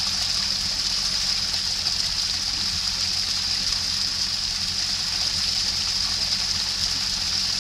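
Water running steadily over rocks and roots, with an even trickling, splashing hiss and a low steady hum underneath.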